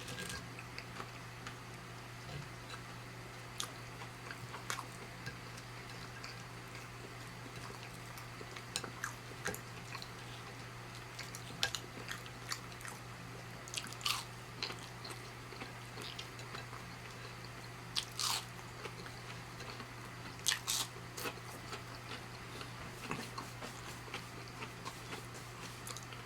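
Close-miked chewing and biting of breaded plant-based chicken, with scattered wet mouth clicks and a few louder crunchy bites, over a steady low hum.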